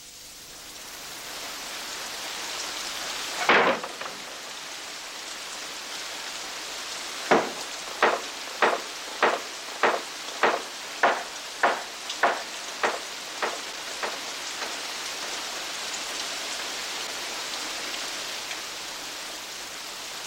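Steady rain-like hiss. A single sharp crack comes about three and a half seconds in, then a run of about eleven evenly spaced knocks, roughly one every 0.6 seconds.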